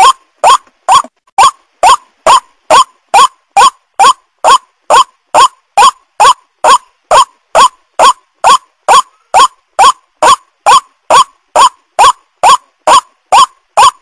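White-breasted waterhen call played back as a bird-trapping lure: one harsh, loud note repeated steadily about twice a second, every note alike.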